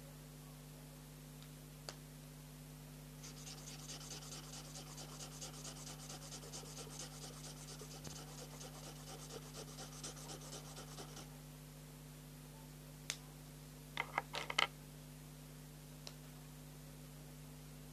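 Felt-tip marker scribbling on paper in quick, even back-and-forth strokes for about eight seconds, followed by a few sharp clicks.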